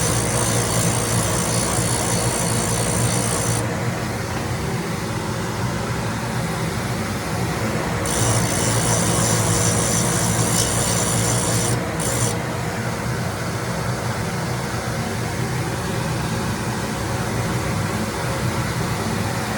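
Grinding machine running with a steady motor hum while its abrasive wheel grinds a cutter. A high grinding hiss comes in two passes: one at the start lasting about three and a half seconds, and another from about eight seconds in to about twelve.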